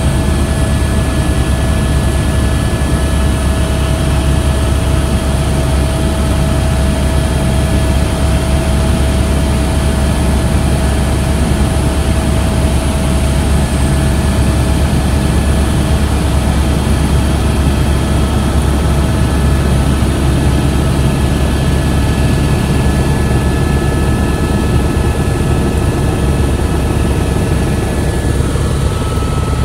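Helicopter in flight heard from inside the cabin: a loud, steady deep drone of rotor and engine with a steady whine over it.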